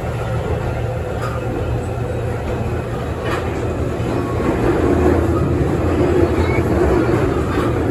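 Beijing Subway Line 1 train running, heard from inside the car: a steady rumble of wheels and running gear with a few faint clicks, growing a little louder about halfway through.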